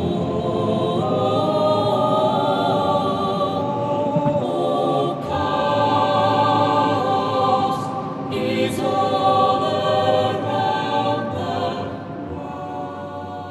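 Music of held, slowly shifting chords with a choir-like sound, fading out near the end.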